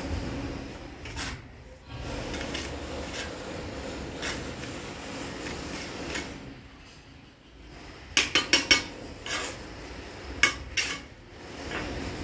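Red clay bricks clinking and knocking against one another as they are handled and lifted from a stack, with scraping and rubbing between. About eight seconds in comes a quick run of four sharp clinks, then a few single ones.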